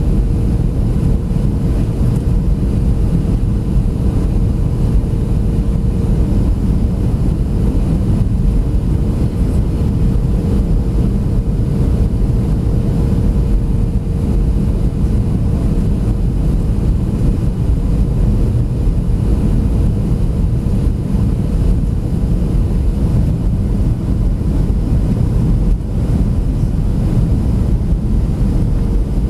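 Cabin noise of a Boeing 737-700 on final approach with the flaps down: a steady low rumble of airflow and its CFM56 engines, with a steady hum running through it.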